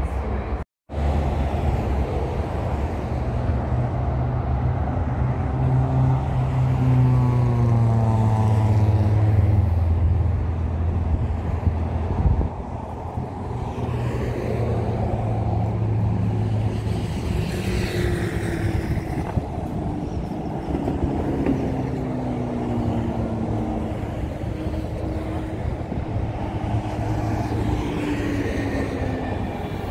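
Steady road traffic from a multi-lane road, with cars and trucks passing one after another, their pitch falling as each goes by. The sound cuts out briefly less than a second in.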